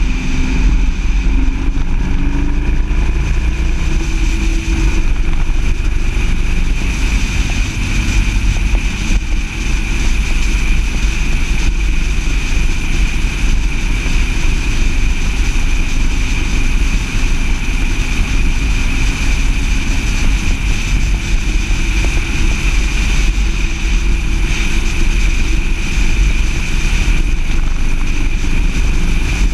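Car driving at steady road speed, heard from a camera mounted on its hood: engine and road noise under a heavy low wind rumble. The engine note climbs in the first few seconds, then holds even.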